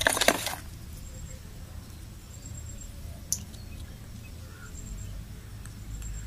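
Faint handling of a smartwatch as its small battery is fitted into the compartment on the back, with one sharp click about three seconds in. A steady low rumble and a few faint, short, high chirps lie underneath.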